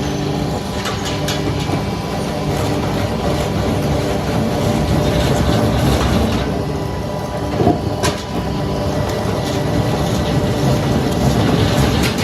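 Heavy machinery running steadily: a low engine-like hum with continuous clatter and a few sharp knocks, one about eight seconds in and another near the end.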